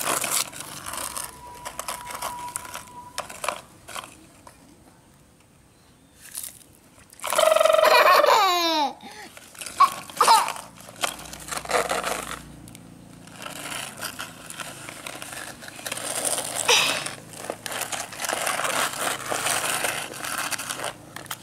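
A toddler's loud vocal cry, its pitch falling, about a third of the way in, with a short call soon after. Around it, plastic toy excavators knock and scrape through sand, the scraping heaviest in the last third.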